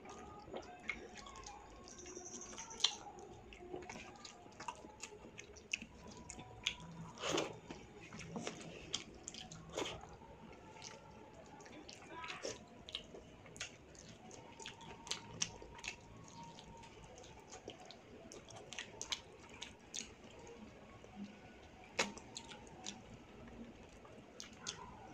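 Wet eating sounds: fingers squishing rice into chicken liver curry gravy, and chewing with lip smacks, heard as a run of small irregular wet clicks.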